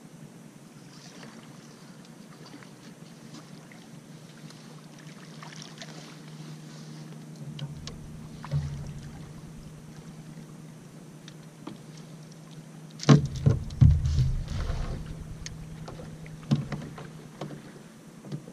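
A blue catfish being reeled up and landed at the side of a boat, with a faint steady hum and light ticks behind it. About 13 seconds in comes a loud burst of sharp knocks and heavy splashing thumps as the fish thrashes at the hull, with a few more knocks shortly after.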